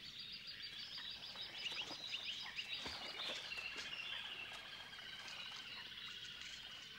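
Faint bush ambience: small birds chirping and calling, with a high, rapid trill through the first three seconds or so.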